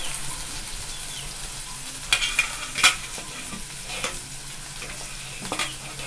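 Chopped onion, garlic and green chilli sizzling steadily in hot mustard oil in a nonstick kadhai, being fried on medium-low heat until golden for a tadka. A few sharp clicks rise above the sizzle, the loudest about three seconds in.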